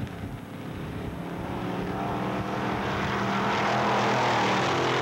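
Engines of two dirt drag racers, a jeep-type vehicle and a buggy, running flat out in a drag race, growing steadily louder as they approach. The loudest moment comes as they pass close by near the end, where the pitch begins to drop.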